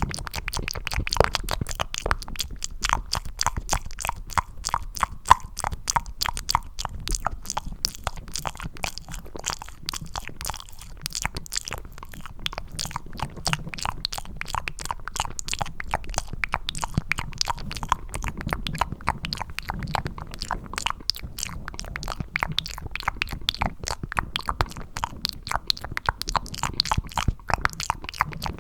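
Wet, sticky mouth sounds made close to the microphone with cupped hands: a dense, irregular stream of small smacks and clicks, like chewing something gooey.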